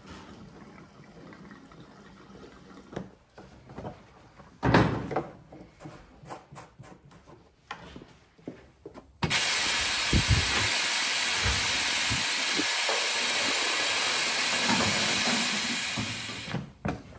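Scattered knocks and clicks with one loud thump, then a loud steady hiss that starts abruptly about nine seconds in, holds for about seven seconds and tails off near the end.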